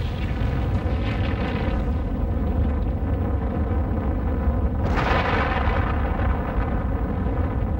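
Explosion sounds: a deep, continuous rumble with a fresh sudden blast about five seconds in that fades slowly.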